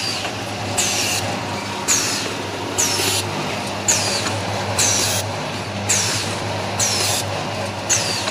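Vertical form-fill-seal packing machine running, cycling about once a second: each bag cycle brings a short hiss of compressed air from its pneumatic cylinders, over a steady motor hum.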